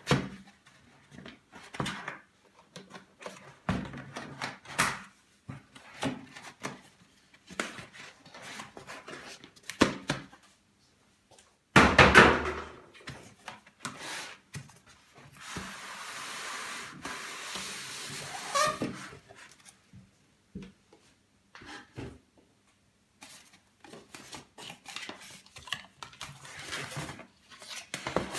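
Cardboard packaging being handled: scattered knocks and rubs, a loud knock and scrape about twelve seconds in, then several seconds of steady scraping as a cardboard sleeve is slid off the box.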